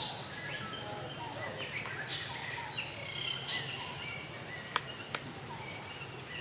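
Many short, high-pitched animal chirps and calls overlapping against steady outdoor background noise. A brief rustle comes right at the start, and two sharp clicks come about five seconds in.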